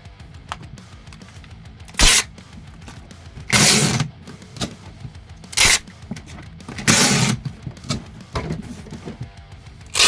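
Background music, with five loud short noisy bursts of packing materials being handled, the longest about half a second.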